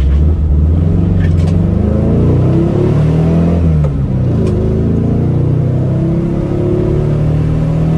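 A 1966 VW Type 3's 1776 air-cooled flat-four pulling through a new performance header, J-tubes and muffler, heard from inside the cabin while driving. The engine note rises, drops back about four seconds in, then rises again.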